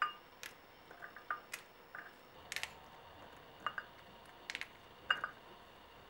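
Pomegranate arils being picked out by hand and dropped into a glass bowl: about a dozen small, irregular ticks and clicks, some ringing briefly.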